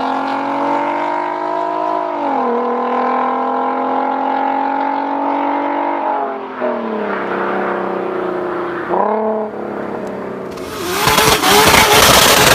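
Volkswagen Golf engine accelerating through the gears, its pitch dropping at each upshift, about two, six and nine seconds in. Near the end a loud rushing noise swamps the engine.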